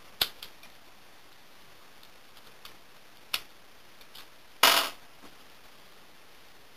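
Small metal clicks of a lock pick and tension wrench working inside a Yale EFB1 shrouded padlock: a sharp click just after the start, another about three seconds in, and a short scraping rattle just before five seconds, with faint ticks in between.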